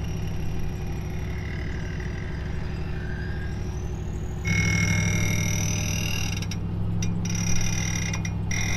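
Truck engines running under load during a winch pull on a box van stuck in mud. About four and a half seconds in, the engine note rises and gets louder, and a steady high whine comes in with it.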